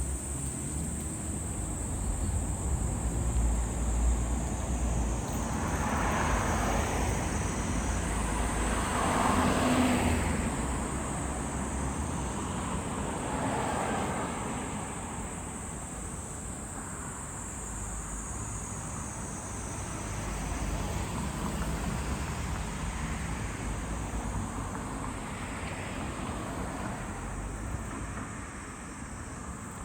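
Road traffic passing in several swells that rise and fade, over a steady high drone of insects.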